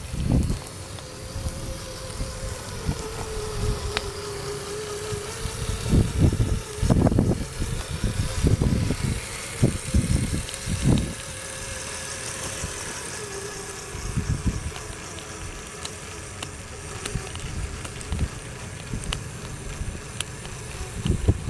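Electric motor and drivetrain of an RC rock crawler on track conversions, a steady whine whose pitch drifts a little with throttle as it crawls up a dirt hill. Irregular low rumbles and thumps come and go over it, loudest in the middle.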